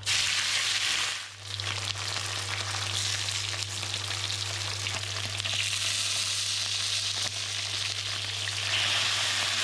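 Mudskippers frying in hot oil in a pan, a steady crackling sizzle that dips briefly about a second in. A steady low hum runs underneath.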